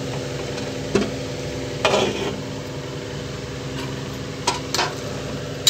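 Clinks and knocks of a steel bowl and spoon against an aluminium pressure cooker as chopped tomatoes are tipped into the vegetables, a few sharp strikes over a steady kitchen hum.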